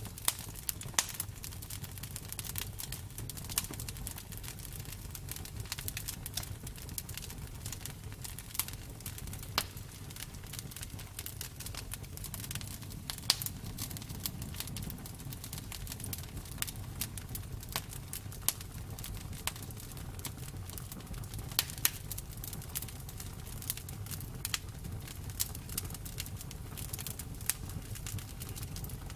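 Bonfire crackling: irregular sharp pops and snaps over a low, steady rumble of the flames.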